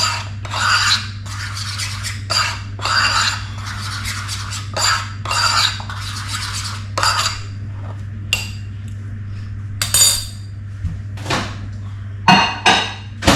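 A spoon stirring and scraping cream of rice in a bowl, in strokes about once a second, then a few clinks and knocks near the end, over a steady low hum.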